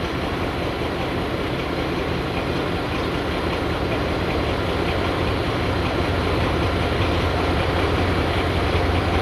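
M62 diesel locomotive running as it slowly hauls a train of hopper wagons, a steady low engine sound that grows louder over the last few seconds as it comes closer.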